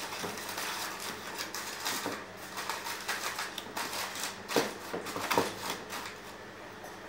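Aluminium foil crinkling and crackling as it is crumpled and pressed down over a baking dish, in a run of irregular small crackles with a couple of louder crunches about four and a half and five and a half seconds in.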